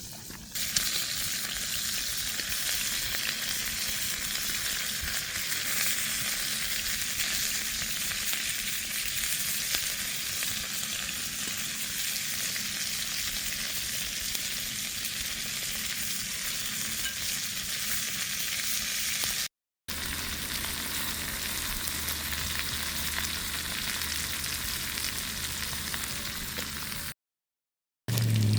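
Food frying in a pan, a steady sizzle. Two short breaks in the sound, about two-thirds of the way through and near the end; a low hum joins after the first break.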